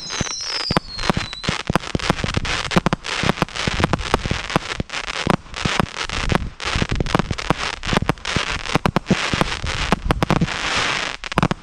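Small consumer firework cakes firing together in a dense run of rapid pops and crackling. Falling whistles fade out in the first second or so.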